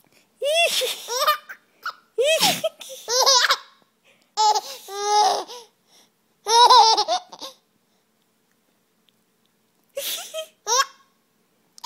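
Toddler laughing in high-pitched peals, several bursts in a row, then a pause of a few seconds before two short giggles near the end.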